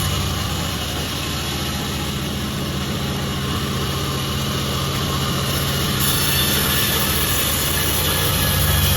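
Sawmill machine running steadily with a low motor hum, sawing jackfruit wood; the hiss brightens from about six seconds in.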